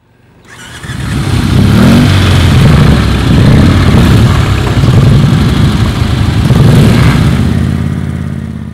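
Indian Chief motorcycle's V-twin engine running loud and being revved, its pitch sweeping up about two seconds in. It swells in over the first couple of seconds and tails off near the end.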